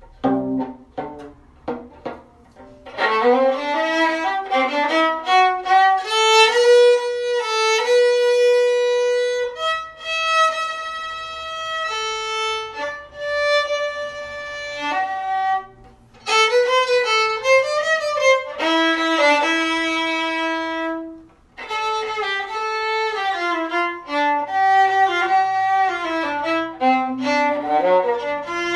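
Violin playing a melody: short detached notes for about the first three seconds, then longer bowed notes with quick runs between them.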